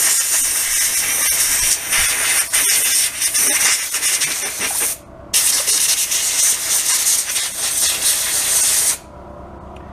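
Compressed-air blow gun blasting air through a small carburetor part to clean out a blockage. A loud steady hiss in two blasts: the first about five seconds long, then a short break, then a second of nearly four seconds that cuts off suddenly.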